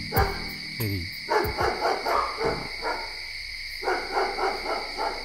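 A dog barking in a quick run of barks, then a few more a little later, over the steady high chirring of night insects.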